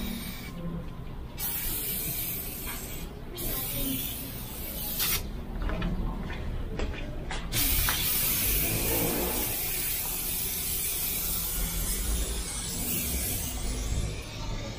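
Aerosol can of tire foam spraying onto an engine bay: a hiss in bursts, broken off briefly about a second in and for a couple of seconds around the middle, then held as one long steady spray through the second half.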